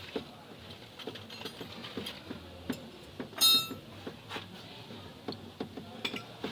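Small metallic clicks and knocks of a jack being worked under the engine, with one loud ringing metal clink about three and a half seconds in.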